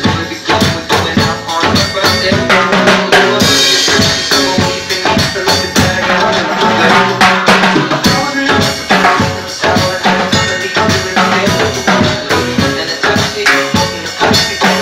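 Fast stick-played percussion solo on timbales, drums and cymbals, over a DJ backing track. A cymbal crash rings out about three and a half seconds in.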